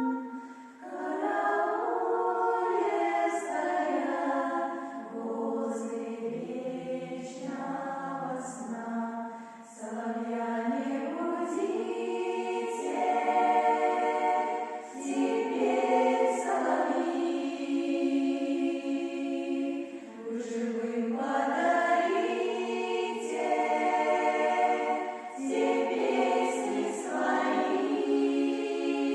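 A choir singing a song in several-part harmony, in long held phrases with short breaths between them.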